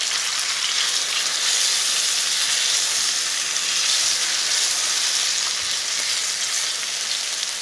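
Flour-dredged chicken breasts sizzling steadily in hot olive oil and butter in a skillet, searing over medium heat.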